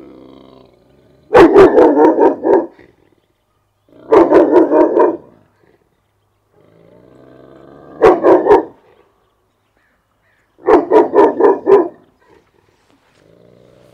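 Young Cane Corso barking in four rapid bouts of several deep barks each, with quieter low growling between bouts and near the end: reactive barking at another dog across the fence.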